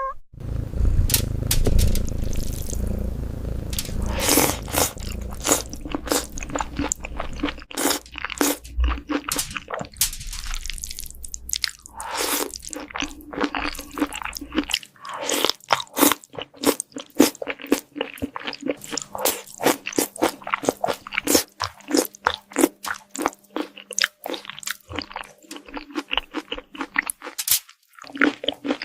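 A cat chewing and crunching food, a long run of crisp crunches several a second, with a low rumble underneath for the first half.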